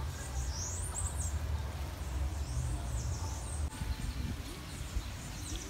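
Birds calling, with a few groups of high, quick sweeping chirps over a steady low rumble.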